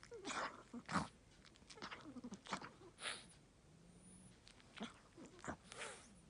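An elderly Chihuahua snoring through a slightly blocked nose: irregular snorts and wheezy, whistling breaths, about one every half second to second. The stuffy nose is the cause of the noisy, wheezing snore.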